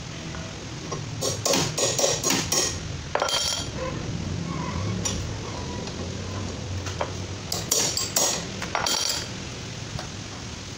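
Metal clinks and rattles of a hand tool working the centre bolt of a front-loading washing machine's drum pulley, in two short bursts, the first about a second in and the second near the end.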